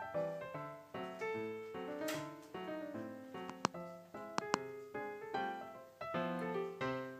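Background music: a light piano tune, notes struck one after another in a bouncy rhythm, with a few short sharp clicks near the middle.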